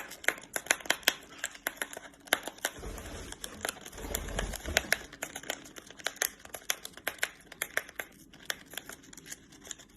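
A parrot tearing open a paper tea packet with its beak: quick, irregular crinkling and ripping with sharp little ticks, and a low handling rumble partway through.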